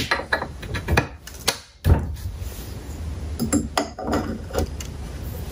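Scattered metallic clicks and clanks from hands working on the head of a Walker Turner drill press, with one sharper knock about two seconds in and a cluster of taps near the end.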